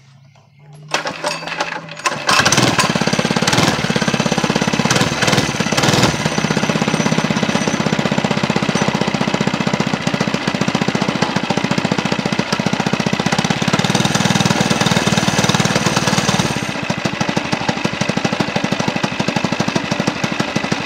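Motorcycle engine running close to the microphone with a rapid, even chatter, building up over the first two seconds.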